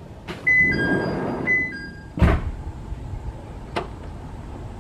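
Hakone Tozan Cable Car sliding doors closing: a two-note high-then-low door chime sounds twice over the rumble of the doors moving, ending in a loud thunk as they shut about two seconds in. A lighter click follows a little later.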